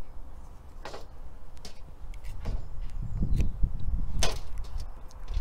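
Wind rumbling on the microphone, stronger after about two seconds, with a few short sharp clicks and snaps as a cotton reel and its thread are handled. The loudest snap comes about four seconds in.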